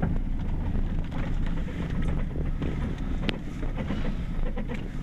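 Vehicle driving slowly along a dirt road, heard from inside the cab: a steady low rumble of engine and road, with the crackle of tyres on the dirt surface.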